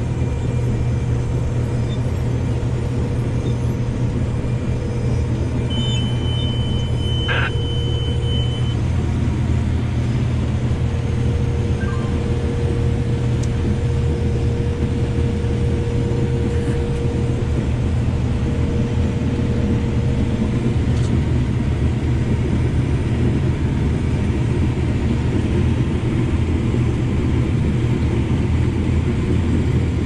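Combine harvester running steadily while harvesting corn, heard from inside the cab: a constant low engine and threshing rumble with a steady hum.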